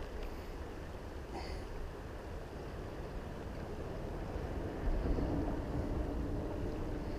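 Wind buffeting the microphone over a steady wash of rippling river water, growing a little louder about five seconds in.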